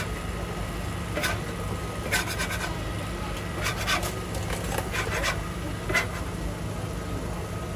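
Metal spatulas scraping and clicking against a large flat griddle as okonomiyaki are turned and shifted, about half a dozen short scrapes over a steady low hum.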